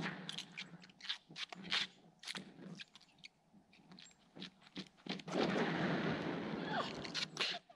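Winter boots scraping and crunching on frozen lake ice: a run of short scrapes, then about five seconds in one longer, louder slide that lasts a couple of seconds.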